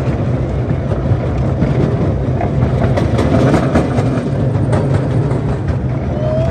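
Ride-on miniature train rolling along its track: a steady low rumble with irregular clicks from the wheels on the rails.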